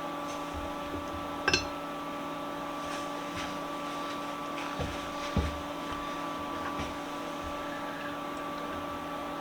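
Dawn bench vise parts knocking and clinking as they are handled and fitted back together, over a steady electrical hum. The loudest sound is a sharp, ringing double clink of metal about one and a half seconds in, and there is a duller knock about five seconds in.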